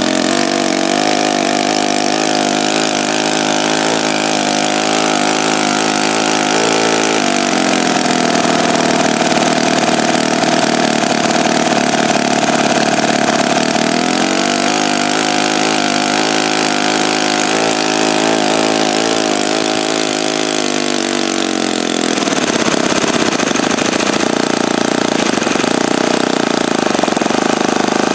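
OS FS-61 four-stroke model-aircraft glow engine running with a propeller at low speed, about 3,000 to 4,400 RPM, while its idle is being set. Its speed picks up about a quarter of the way in, settles back down about halfway, and picks up again in the last quarter.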